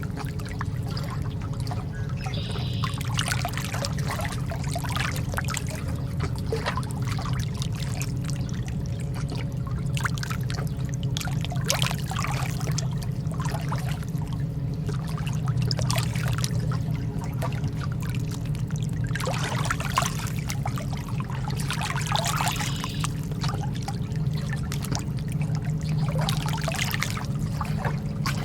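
Calm sea water lapping and splashing in small, irregular gurgles every second or two, over a steady low hum.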